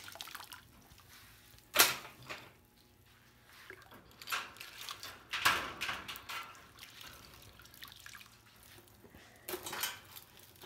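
Water dripping and splashing back into a tub as a bundle of wolf snares is lifted out of it, in irregular spatters, with one sharp knock about two seconds in.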